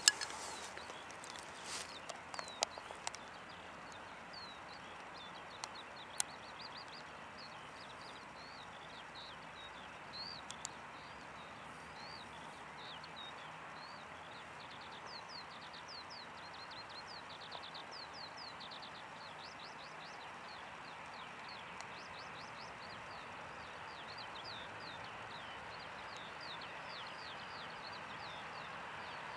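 A small bird chirping over and over in quick short notes, over a steady distant noise of the airfield. A few sharp clicks in the first several seconds, the loudest right at the start.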